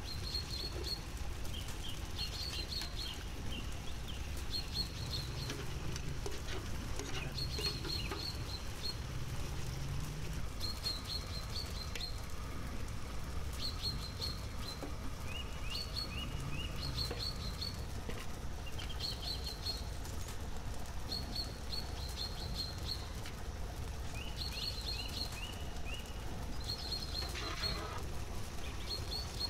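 Small birds chirping: short clusters of quick high notes repeat every second or two, with runs of lower chirps in between, over a steady low rumble.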